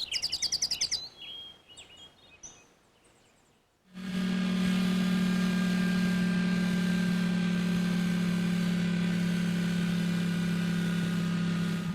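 A quick run of high chirping clicks, then a pause, then from about four seconds in the steady, even drone of a small vehicle's motor, a sound effect for a toy buggy driving along.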